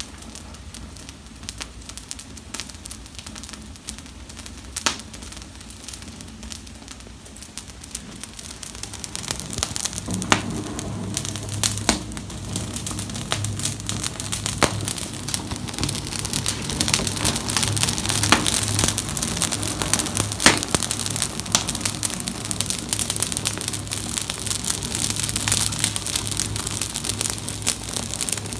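Wood fire of fir branches and needles burning in a metal fire basket, crackling with sharp pops and a hiss. It starts quietly with scattered pops and grows louder and denser from about ten seconds in as the flames take hold.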